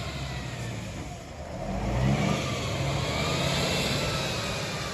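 Tatra truck's diesel engine revving hard under load as its wheels spin in mud. The engine note drops about a second in, then swells again with a rising whine.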